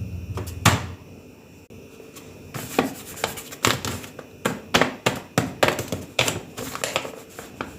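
Crinkling and crackling of a sticker blind bag being handled and opened: one sharp crackle under a second in, then a quick irregular run of crackles from about two and a half seconds in.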